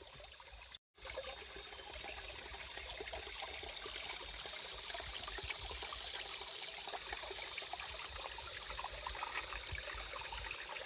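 Small stream flowing and trickling over stones, a steady rush of water. It cuts out briefly about a second in.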